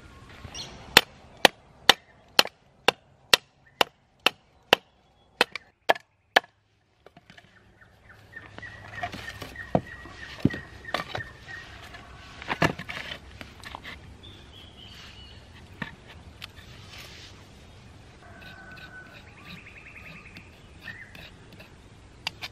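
About a dozen sharp chopping strikes on wood, evenly spaced at roughly two a second, then they stop. After a brief dropout comes quieter bush ambience with scattered bird chirps and an occasional knock.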